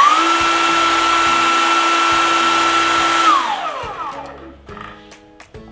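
Xenon CDCS1845 18V cordless brushless circular saw running with no load as a test after reassembly: its motor and blade finish spinning up and hold a steady high whine for about three seconds, then the trigger is released and the whine falls as the blade coasts to a stop about four and a half seconds in.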